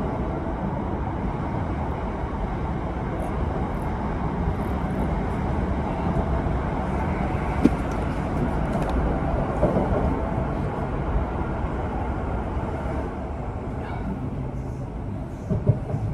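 Steady rumble of a moving electric commuter train, heard from inside the carriage, with one sharp click about eight seconds in.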